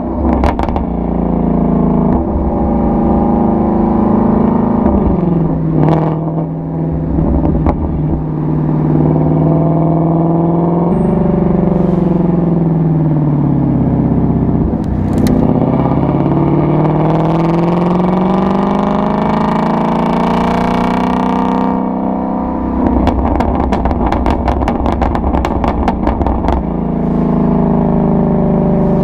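Ford Mustang Shelby GT350's 5.2-litre flat-plane-crank V8 running through its exhaust, the revs holding, dropping and climbing again several times, with one long fall and rise in the middle. Near the end comes a stretch of rapid sharp crackles.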